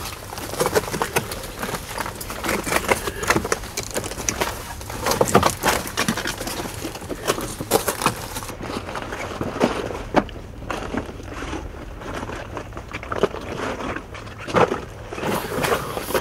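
Boots scrambling over loose, rough lava rock: irregular crunches, scuffs and knocks of footsteps and gear against the stone, somewhat quieter in the later part.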